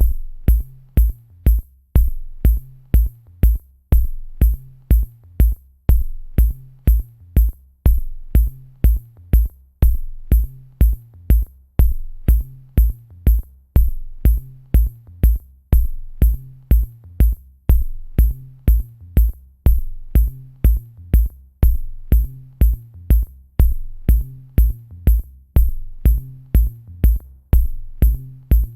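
Electronic dance track built on a drum machine: a deep kick about twice a second, high ticking hi-hats and a repeating low bass line, keeping a steady, unchanging beat.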